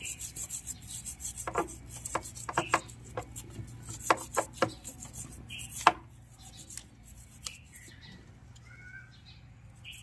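A toothbrush scrubbing around a motorcycle's front chain sprocket and its shaft nut: a dry, rasping scrub with sharp taps as the brush knocks against the metal, busiest in the first six seconds and lighter after.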